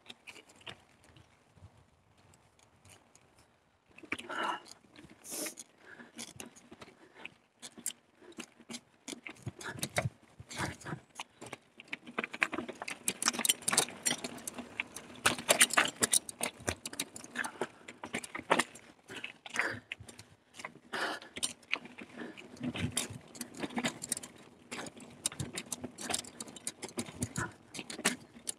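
Carrera Hellcat mountain bike rattling and clattering over a rough trail, with irregular clicks and knocks from the chain and frame over tyre noise. Fairly quiet for the first few seconds; the rattling starts about four seconds in and gets busier from about twelve seconds on.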